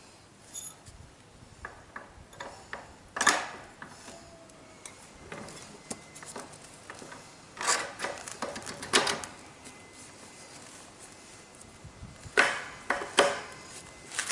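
Sharp clicks, clinks and knocks of tools and hard parts being handled: a single loud knock about three seconds in, a cluster around eight to nine seconds, and another near the end.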